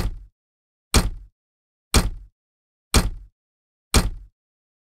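A ticking-clock sound effect: five loud, sharp ticks, one each second, each with a deep thud under it and dead silence between them.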